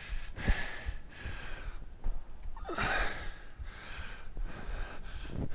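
A man breathing hard from exertion, with rushing exhales and inhales between squat reps and a louder breath about halfway through.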